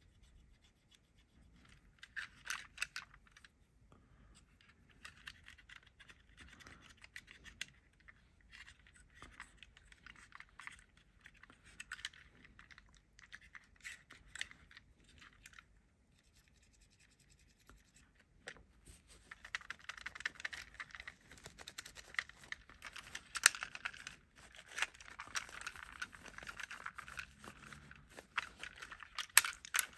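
A cotton bud scratching and rubbing against a toy car's body and door in short uneven strokes. From about 19 seconds in, a microfibre cloth rubs over the car, louder and more continuous, with a few sharp clicks.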